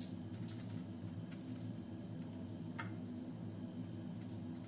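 Sugar sprinkled from a metal spoon onto a sheet of puff pastry, its granules landing in a few soft, short hissing patters. A single sharp clink of the spoon, likely against the glass sugar bowl, comes about three seconds in. A steady low hum runs underneath.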